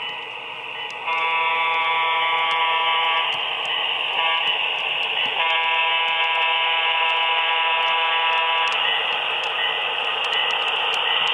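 HO-scale Proto 2000 F7 diesel model's DCC sound decoder blowing a multi-chime air horn through its small speaker in three blasts, long, short, long, the close of a grade-crossing signal. After the horn it plays the diesel engine's running sound, with light ticking throughout.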